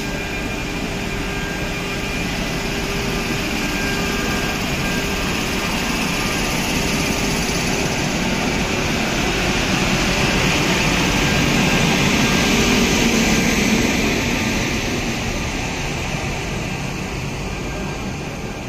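A WAP-5 electric locomotive hauling an LHB rake pulls slowly out of the station: a steady whirring machine roar of its cooling blowers and traction motors, with a faint steady whine. The noise grows to its loudest about twelve seconds in as the coach-end generator (power) car passes, then eases.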